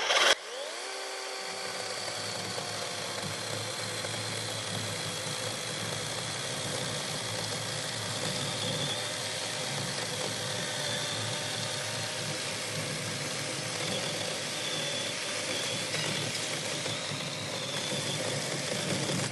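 An engine or motor spins up about half a second in, then runs steadily at an even pitch and level, and cuts off suddenly at the end.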